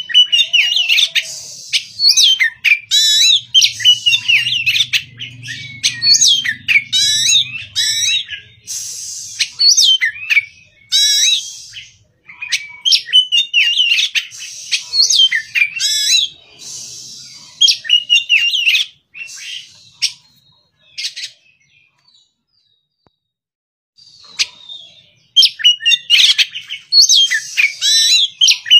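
Oriental magpie-robin singing: rapid, varied whistled phrases and chatter. It falls silent for a few seconds about two-thirds of the way through, then starts again near the end.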